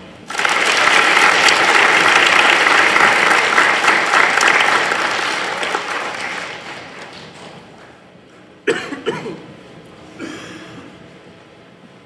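Audience applause in a large hall, starting sharply, holding loud for several seconds, then dying away. A single sharp knock comes after the clapping has faded.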